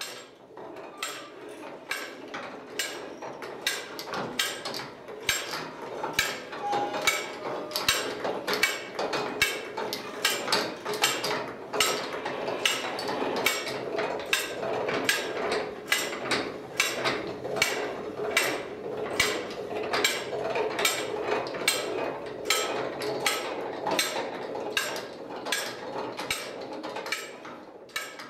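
Hand-operated 1880s level-crossing barrier being cranked up: its cog drive and chain transmission make a steady mechanical whirr with regular sharp clicks, about two a second. The Südbahnwerk advance-warning bell is switched off for lifting and does not ring.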